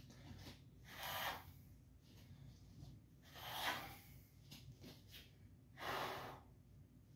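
Three short breathy whooshes, about two and a half seconds apart, one with each sword cut in a practice drill.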